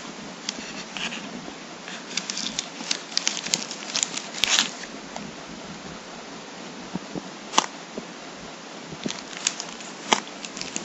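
Plastic packaging crinkling and crackling in irregular bursts as it is handled, densest a few seconds in, with a few sharp isolated clicks later.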